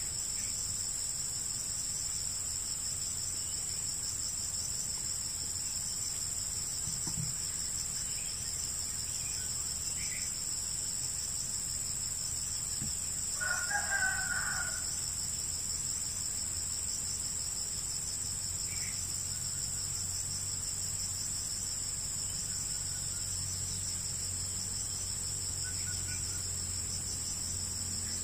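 Steady high-pitched drone of insects, with a rooster crowing once about halfway through.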